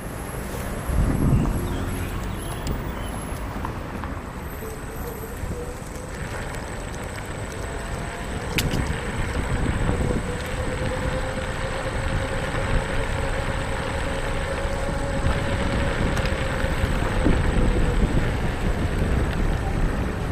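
Riding noise from a Xiaomi electric kick scooter: a steady rumble of small tyres rolling over pavement and wind on the microphone, with a low thump about a second in. A faint whine rises a little a few seconds in and holds through most of the ride before fading.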